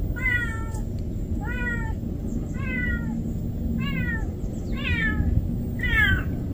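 A kitten meowing repeatedly, about once a second: six high-pitched cries, each falling in pitch.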